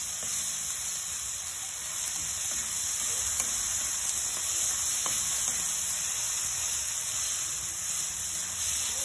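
Onions, garlic, ginger and tomatoes sizzling steadily in hot oil in a wok, stirred and scraped around with a spatula, with a few light ticks of the spatula against the pan.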